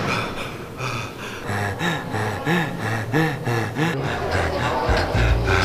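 A young man panting hard, out of breath, in a run of short voiced breaths about every half second, over soft background music.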